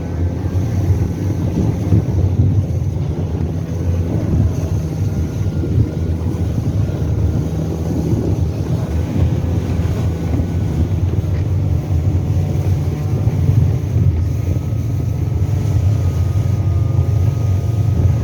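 Motor vehicle engine running steadily as it drives, with wind buffeting the microphone.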